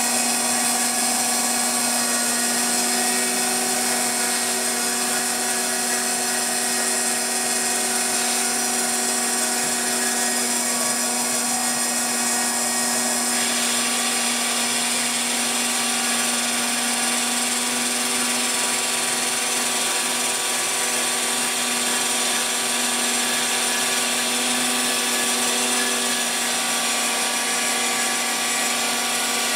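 Phlatprinter CNC mill running steadily as its small end mill cuts a fibreglass sheet: a loud, constant motor whine over cutting hiss. Partway through, part of the hiss drops away.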